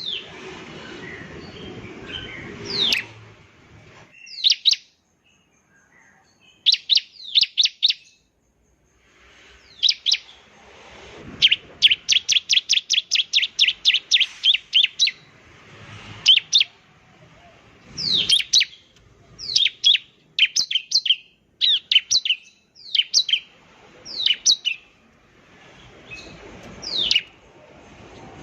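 Bar-winged prinia (ciblek) singing: loud, sharp, high notes that fall in pitch, given in short clusters with brief pauses. About 11 seconds in there is a fast run of about six notes a second that lasts around four seconds.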